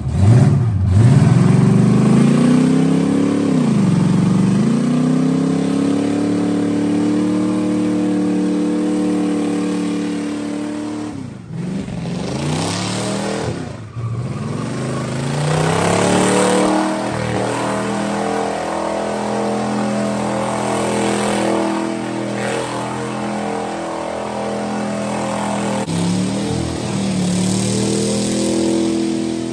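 Pickup truck engine revving hard and held near full throttle during a burnout, the revs dropping sharply and climbing back several times.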